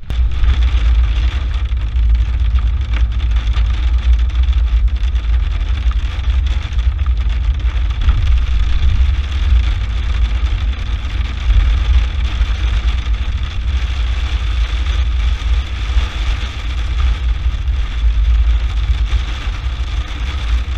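Inside a car driving in heavy rain: a steady low rumble of engine and road noise, with the hiss of rain on the windshield and roof.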